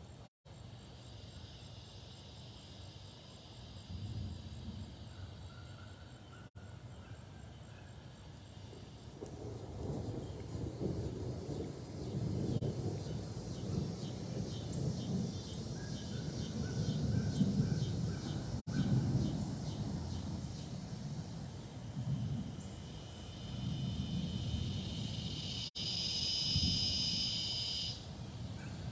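Strong gusty wind from a severe thunderstorm, rushing and buffeting the microphone in surges that rise and fall, growing stronger about ten seconds in.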